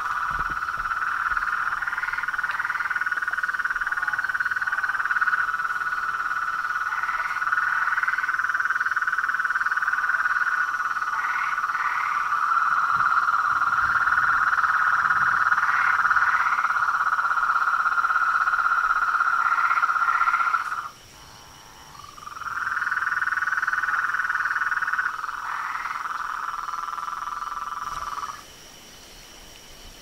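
Frogs calling in a dense, steady chorus at one pitch, with short higher rising calls standing out every few seconds. The chorus stops suddenly about two-thirds of the way through, starts again a second or so later, and stops suddenly again near the end.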